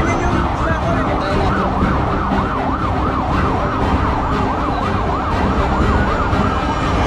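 A siren yelping, its pitch sweeping up and down about two or three times a second, then settling into one long, slowly falling tone near the end, over a steady low rumble.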